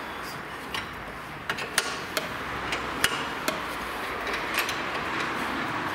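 Sharp, irregular metallic clicks and clinks of a combination spanner worked on a front suspension nut of a Land Rover Discovery 3, about ten in all, over steady background noise.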